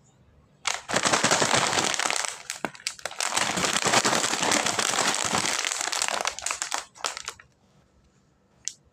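Crinkly snack packaging being handled and crumpled, in one long rustling spell that eases briefly about two and a half seconds in, then stops about seven seconds in. A single sharp click comes near the end.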